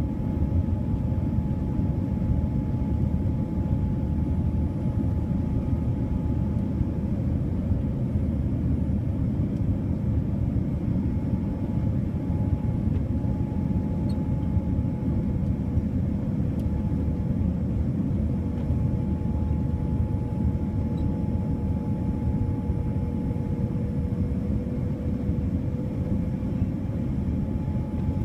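Steady cabin noise inside a Boeing 787-9 airliner: an even rumble of engines and airflow with a faint, steady hum riding on top.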